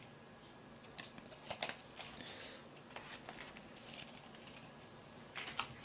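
Faint rustling and a few soft clicks and crackles as lettuce leaves and plastic takeout trays of food are handled.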